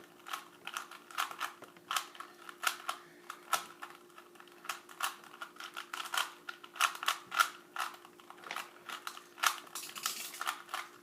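Rubik's brand 3x3 cube, not a speed cube, being turned by hand: irregular plastic clicks and clacks of the layers snapping round, several a second. A faint steady hum runs underneath.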